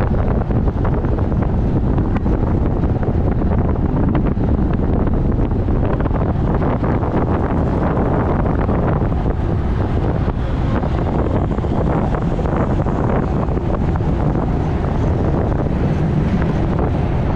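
Steady rushing wind buffeting a bike-mounted camera's microphone as a road bike is ridden fast, at about 25 mph.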